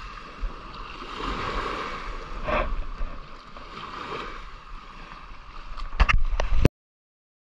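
Water and wind noise at the shore, with a few sharp knocks about six seconds in, then the sound cuts off abruptly.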